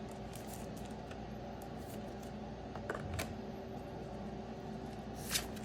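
Faint rustling and light clicks of trading cards being handled and shuffled from one to the next, over a steady low room hum, with a slightly louder rustle near the end.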